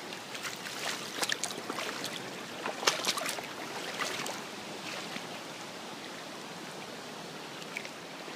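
Fast-moving floodwater flowing and rippling, a steady rush of water with a few short, sharp sounds in the first half.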